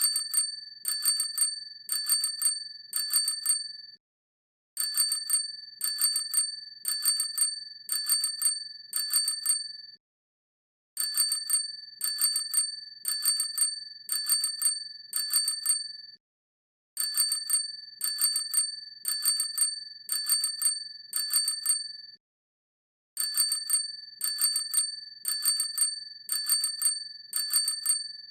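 Bicycle bell ringing "tring tring" over and over: quick rattling metallic rings about once a second, in runs of five or six, with a pause of about a second between runs.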